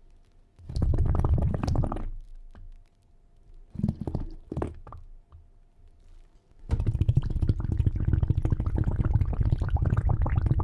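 Low bubbling, gurgling water sounds, in short bursts at first and then continuous from about seven seconds in.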